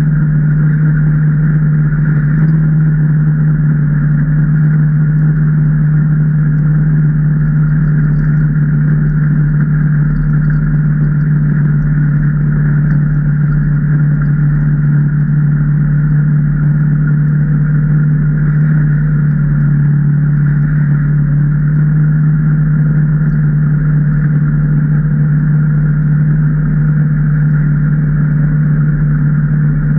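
A Can-Am Maverick Trail 800's V-twin engine running at a steady speed while the machine is under way. It holds one constant low note throughout, with a steady higher hum above it and no revving.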